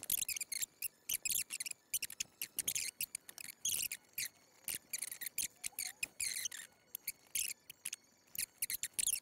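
Typing on a computer keyboard: quick, irregular runs of keystrokes, with short pauses between runs.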